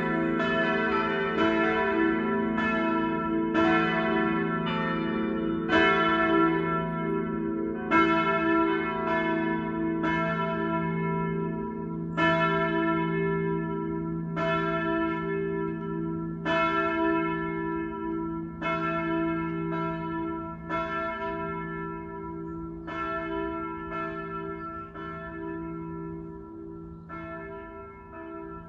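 Full peal of four swinging church bells, the strikes overlapping over a steady ringing hum. The strikes grow quieter and come less often toward the end.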